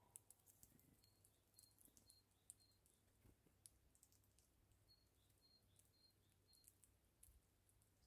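Very faint, sharp irregular clicks of a male Eurasian bullfinch husking seeds on a feeding table. Twice, a short run of four or five high, evenly spaced notes from a small bird.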